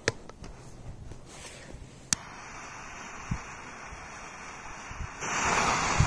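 A lighter clicks about two seconds in and its flame hisses steadily at a Big Boom firecracker's fuse. About five seconds in the fuse catches and hisses loudly as it burns.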